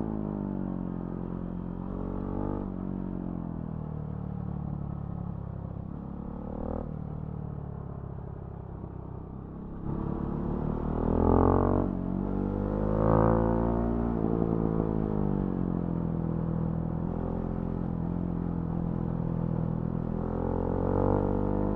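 Husqvarna Svartpilen 701's single-cylinder engine through a Remus NXT exhaust, heard on the move. The revs rise and fall gently for the first ten seconds, then the engine gets louder with two quick rev-ups about eleven and thirteen seconds in, and settles to a steady cruise with another rise near the end.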